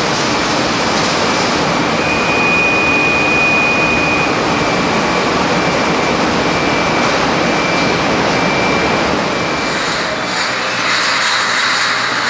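Steady loud rushing noise of a steam-coil boiling pan with marmalade at a full boil, cooking at about 107 °C, with a faint steady high whine through the middle. Near the end it gives way to a brighter, lighter factory noise with rapid faint ticking.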